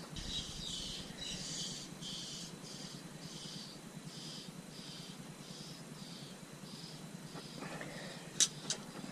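A steady, rhythmic high-pitched chirping, about two chirps a second, with two sharp clicks near the end.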